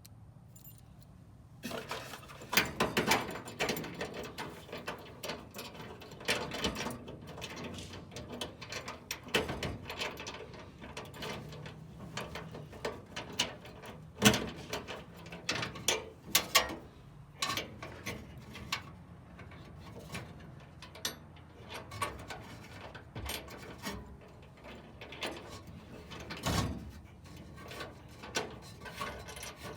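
Irregular metal clicking, knocking and rattling from parts of a truck toolbox lock being worked by hand, starting about a second and a half in.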